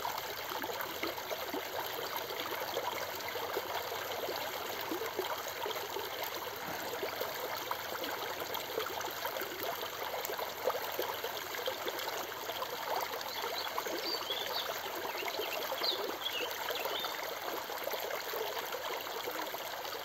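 Small creek babbling over a low rock ledge and around stones in a shallow riffle, a steady, even rush of water.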